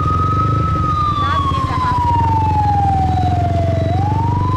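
Emergency vehicle siren wailing: a single tone that holds high, slides slowly down for about three seconds, then sweeps back up near the end. A steady low rumble of motorbike engine and road noise runs underneath.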